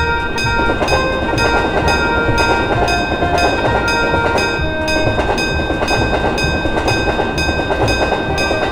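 A train rumbling past a railway level crossing while the crossing bell keeps ringing, about two strokes a second.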